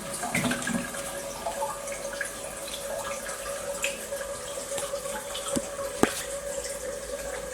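Water running in through the T-connector and supply hoses just after the supply valve is reopened, with a steady tone held underneath. Two sharp clicks come about six seconds in.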